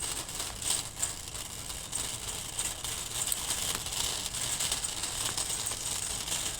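Steady background hiss and low hum, with a few faint clicks and rattles.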